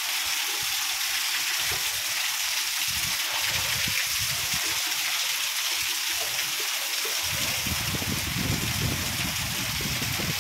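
Heavy rain pouring down in a steady, dense hiss. A low, uneven rumble joins about seven seconds in.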